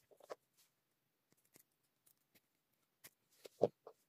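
Faint handling sounds at a workbench: a few scattered light clicks and taps, then a louder short knock between two smaller ones near the end, as hands take the circuit board from the helping-hands clamp.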